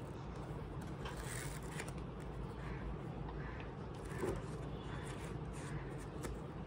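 Pages of a paperback manga volume being flipped through by hand: a run of soft paper rustles and flicks over a steady low background hum.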